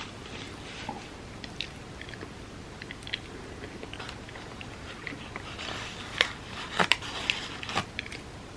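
Close-miked chewing and biting of food, wet mouth sounds with scattered crisp clicks, growing into a run of louder, sharper crunchy clicks about six seconds in.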